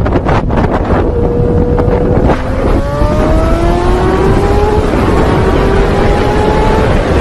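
Sport motorcycle engine accelerating, its pitch climbing through the gears with a shift about two and a half seconds in and another near five seconds, under heavy wind noise on the microphone.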